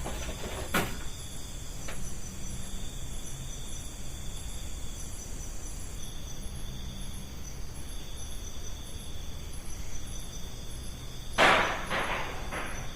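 Night insects chirping steadily. About eleven seconds in comes a loud clatter of several quick knocks on the roof, taken for something thrown onto it.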